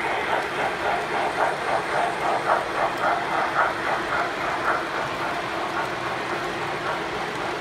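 O-gauge model trains running on their track: a rhythmic pulsing about three times a second over a steady hum, easing off after about five seconds.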